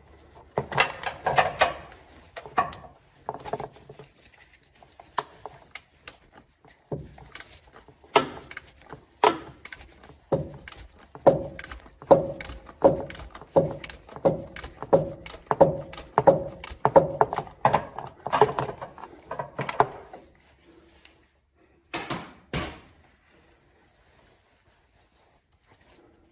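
Ratchet clicking in repeated rapid runs of metallic clicks as it swings back and forth, turning an oil filter removal tool to loosen the oil filter on a Toyota Tundra. The clicking stops about 20 seconds in, followed by two last clicks a couple of seconds later.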